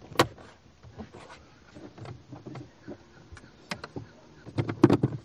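Clicks and knocks of a car's plastic dash trim and a replacement radio screen being pressed and fitted into place by hand. There is a sharp click just after the start and a cluster of louder knocks near the end.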